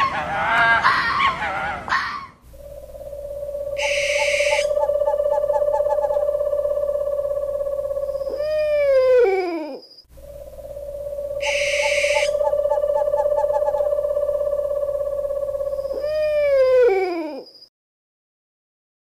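Owl hoot sound effect: a long steady hoot that slides down in pitch at the end, played twice in the same form, with a short hiss a little way into each hoot. It stops short of the end.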